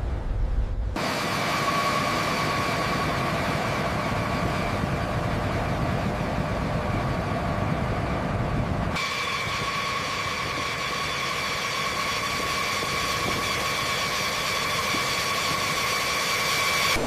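A steady engine noise with a high whine over it, changing abruptly about a second in and again about halfway through.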